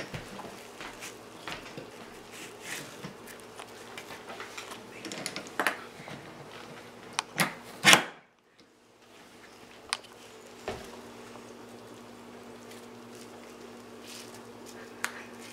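Hand-cranked apple peeler-corer-slicer being worked: scattered clicks, knocks and scraping from the crank, prongs and blade on the apple, with a loud clunk about eight seconds in. A steady low hum runs underneath.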